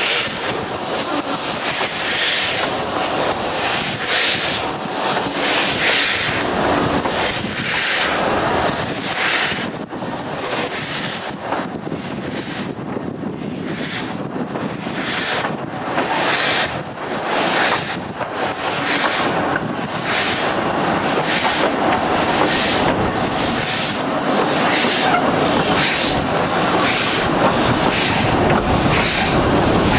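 Narrow-gauge steam train running, with a fairly regular run of beats in the second half and wind noise on the microphone.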